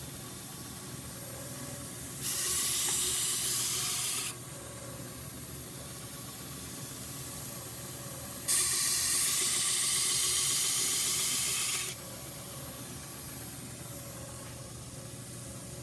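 Two bursts of steady hissing that start and stop abruptly: the first lasts about two seconds, and the second, starting about eight and a half seconds in, lasts about three and a half. A faint steady hum runs underneath.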